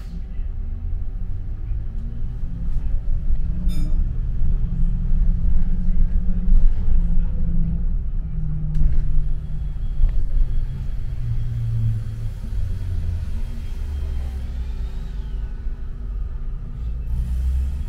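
London route 253 bus running, heard from on board: a low rumble whose engine note climbs over the first few seconds as the bus pulls away, then holds steady while it cruises. A faint high whine joins from about halfway through.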